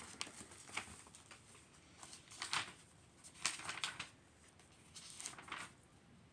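Pages of a paperback book being leafed through: a few short, quiet paper rustles.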